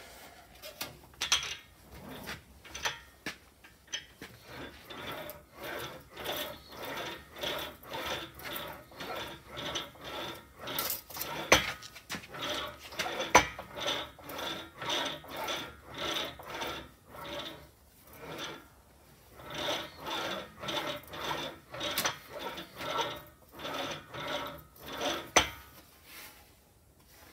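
Sheet-steel patch panel being rolled back and forth through an English wheel, a rhythmic rasping rub that swells and fades with each pass as the wheels stretch the metal to raise a crown. Two sharper knocks come near the middle.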